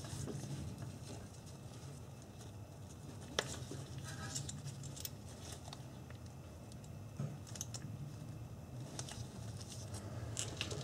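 Faint clicks and rustling of a gloved hand working behind a brake caliper, fitting a pinch-off clamp onto the rubber brake hose, with one sharper click about three and a half seconds in. A low steady hum runs underneath.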